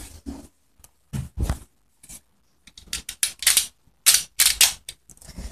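Plastic clicks and rattles from a toy dart blaster being handled, in several quick clusters.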